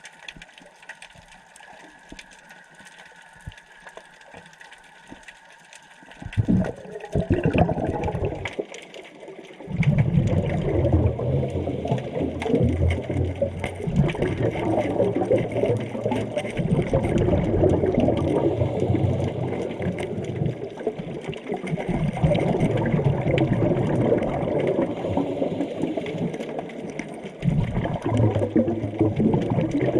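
Underwater bubbling and rushing water: a scuba diver's exhaled bubbles gurgling past the camera. Fairly quiet at first, then loud from about six seconds in, running in long surges with brief pauses.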